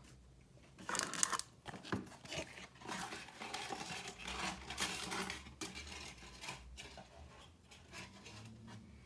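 A baseball card pack's wrapper being torn open and crinkled, with a sharp tearing burst about a second in and crinkling and rustling of the wrapper and cards after it.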